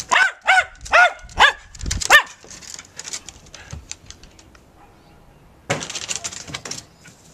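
Jack Russell terrier barking five times in quick succession, short sharp barks. Near the end comes a quick run of scuffs and clatters.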